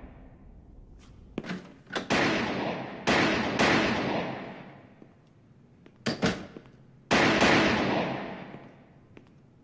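Revolver shots echoing in an indoor firing range: four loud shots, about two, three, three and a half and seven seconds in, each ringing away over a second or two, with several smaller sharp cracks between them.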